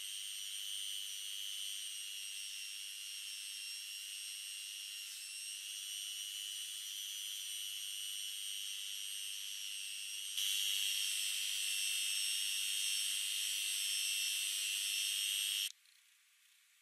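Handheld rotary tool running a green abrasive wheel against a steel chisel blade to clean it: a steady high-pitched whine that gets louder about ten seconds in, then stops about a second before the end.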